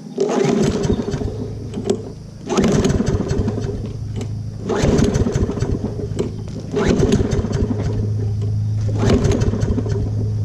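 Toro self-propelled push mower's recoil starter pulled five times, about every two seconds, each pull a rasping whir of the engine cranking over without catching: a no-start.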